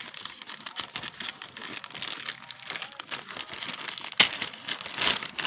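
Parcel packaging crinkling and rustling as it is handled and unwrapped by hand, with a sharp snap about four seconds in.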